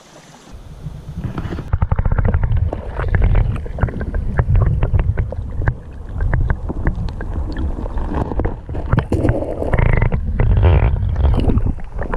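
River water around a submerged GoPro camera and its microphone: muffled sloshing and rumbling, with many sharp clicks coming thick and fast from about two seconds in.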